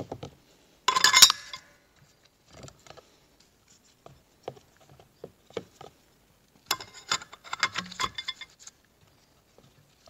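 Steel clutch plates and friction discs clinking as they are handled and stacked into a TH350 clutch drum: a sharp burst of metallic clinks about a second in, a longer run of clinking from about seven seconds to near nine, and light taps in between.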